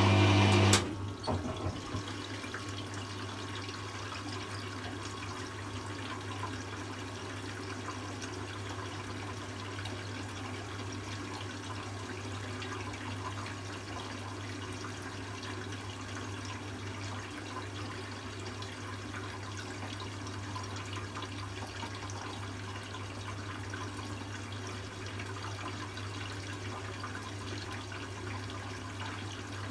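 Hoover Classica 1100 AC164 washing machine taking in water for its first rinse, a steady rush of water with a constant low hum. It is louder for the first second or so.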